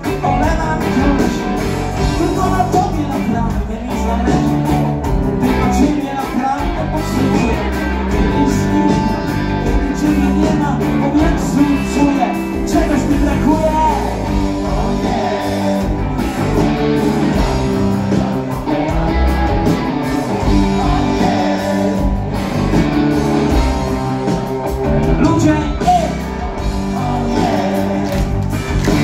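Rock band playing live: electric guitars, keyboard and drums in a full, steady song passage.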